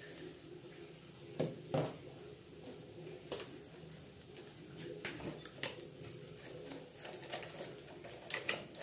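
Spices cooking in a kadai on a cooktop: a faint steady hum and light hiss, with a few soft clicks and taps.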